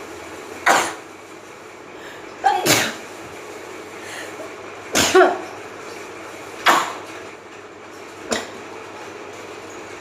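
A woman sneezing five times over about eight seconds, a few sharp loud sneezes with the last one weaker, set off by a strong-smelling product rubbed on her nose.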